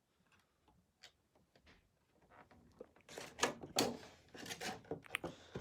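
Cardboard and plastic packaging of a Pokémon card collection box being handled, with a few faint ticks at first and then uneven rustling, scraping and light knocks from about halfway in.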